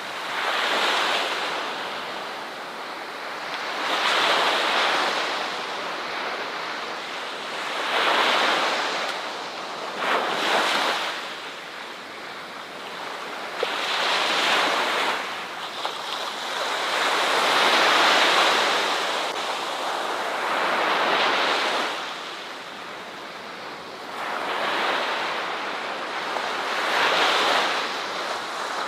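Ocean waves breaking on a beach, a wash of surf that swells and falls back about every three to four seconds.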